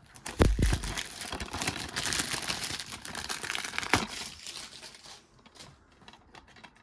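Cellophane shrink-wrap being pulled off a DVD case and crumpled in the hands, crinkling for about four seconds after a low thump near the start, then dying down to a few small handling clicks.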